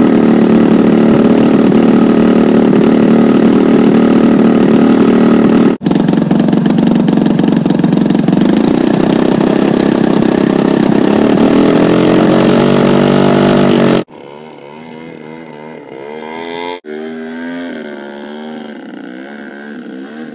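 A large aerobatic RC airplane's engine running loud and close on the ground, rising in pitch as it is throttled up. After about fourteen seconds it drops to a quieter, more distant engine sound whose pitch wavers up and down as the plane flies.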